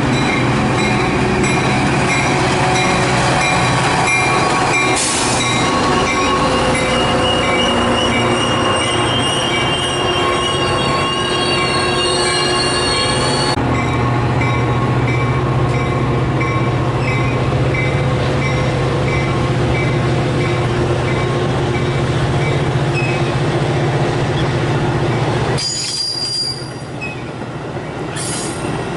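Metra commuter train pulling into the station, its steel wheels squealing on the rails with several high tones over the steady running noise. A short high ding repeats about twice a second. A steady low hum takes over midway, and the sound drops suddenly a few seconds before the end.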